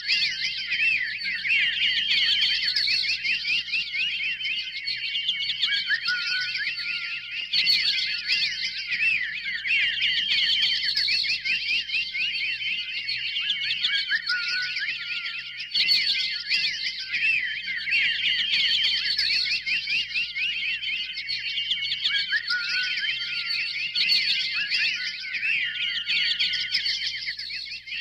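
A dense chorus of many songbirds chirping and trilling over one another, all high-pitched, with no pause. The same stretch of chorus comes round again about every eight seconds.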